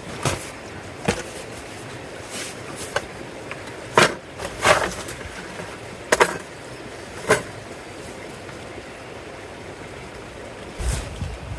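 A steady faint hiss broken by about eight sharp, irregularly spaced snaps and clicks, the loudest around the middle, with a low rumble near the end.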